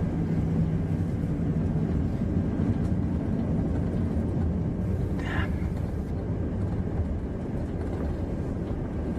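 Jet airliner cabin noise heard from a window seat: a steady low rumble of engines and airflow, with a steady hum that fades out about two seconds in. A brief faint sound comes about five seconds in.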